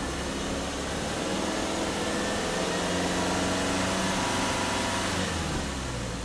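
Exhaust of a Subaru Impreza Sport 2.0i's 2.0-litre flat-four boxer engine, heard from behind the car, revved with no load: the pitch climbs over about two seconds, holds, then drops back toward idle about five and a half seconds in.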